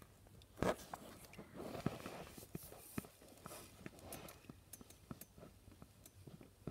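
Faint rustling and scattered small clicks close to the microphone, with a louder bump about half a second in.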